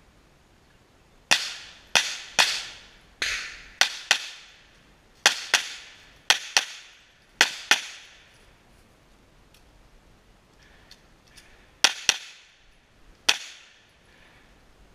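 Pistol shots fired in a defensive-pistol match stage, about fifteen sharp reports, mostly in quick pairs (double taps), each ringing out briefly. The shooting stops for about four seconds in the middle, then three more shots follow.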